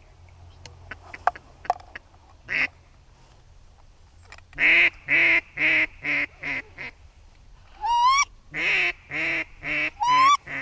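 Duck quacks: a run of six evenly spaced quacks that fade as they go, then two sharply rising squealing calls with more quacks between them.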